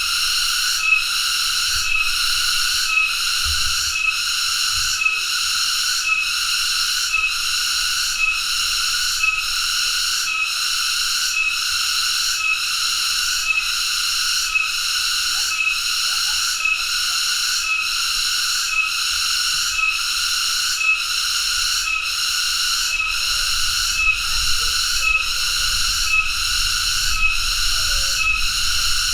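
Cicada calling: a continuous shrill buzz, pulsing evenly about every 0.7 seconds.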